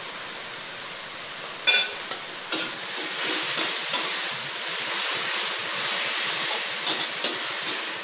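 Snow peas and shiitake mushrooms sizzling in a steel wok, steady at first. About two seconds in, a metal spatula clangs against the wok and stir-frying begins; the sizzle grows louder, broken by scrapes and taps of the spatula.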